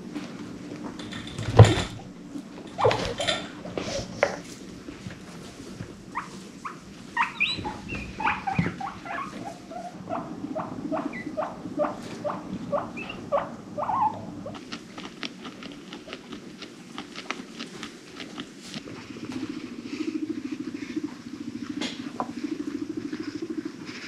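Guinea pigs vocalizing: a sharp thump early on, then a run of short squeaks, about two a second, for several seconds, followed by rapid fine clicking and, near the end, a low vibrating purr.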